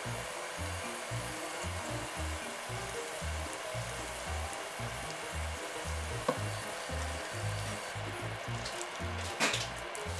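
Squid stir-fry and its red pepper sauce sizzling steadily in a frying pan while a silicone spatula stirs it. There is a louder sharp stroke near the end.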